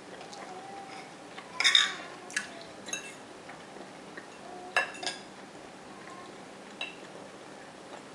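Metal fork and knife clinking and scraping against a plate while cutting food, a handful of short sharp clinks with the loudest about two seconds in.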